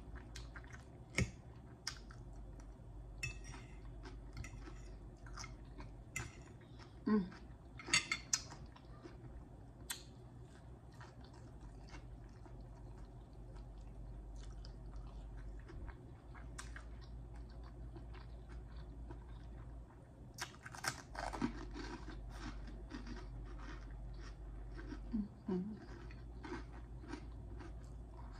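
Close-miked chewing and wet mouth smacking while eating fried fish balls with salad, with many sharp clicks and small crunches.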